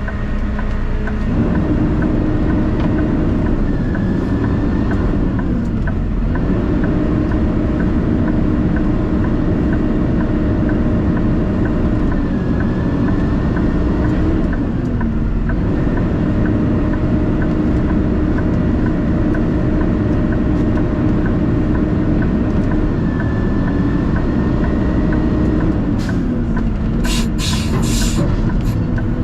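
Heavy vehicle's engine running steadily while driving, its note dipping and climbing back about three times. A light ticking repeats at about two per second, and there are a few short hisses near the end.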